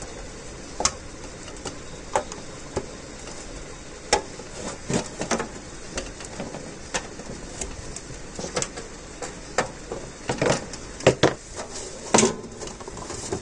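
Irregular clicks, knocks and scrapes of fridge-freezer parts being handled and fitted, coming more often and louder in the second half, over a steady background hiss.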